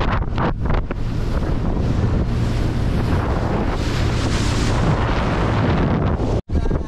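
Heavy wind buffeting the microphone over the rush of water along the hull of a fast-moving outboard boat, cut off by a brief dropout about six and a half seconds in.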